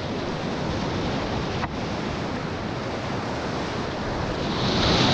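Whitewater river rapids rushing around a kayak, a steady dense wash of water close to the microphone, growing louder and brighter near the end.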